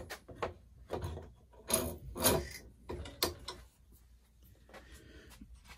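A square wooden stick being set and clamped in a steel bench vise: a run of clicks, knocks and short scrapes of wood against metal, busiest in the first few seconds, then lighter handling noises.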